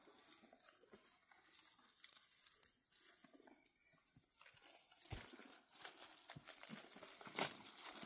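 Quiet rustling and crinkling, with sharper crackles growing louder from about five seconds in.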